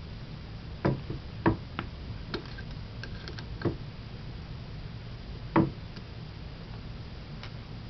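Scattered small metallic clicks and taps as the bonnet screws are put back into a paintball tank regulator with an Allen wrench, the loudest about five and a half seconds in.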